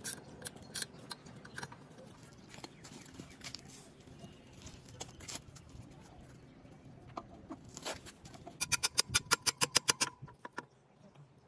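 Scattered metallic clicks and knocks as motorcycle front-end parts are handled and the front wheel is fitted between the forks. Then, about nine seconds in, a fast run of about a dozen sharp hammer taps on the front axle, driving it through the wheel hub.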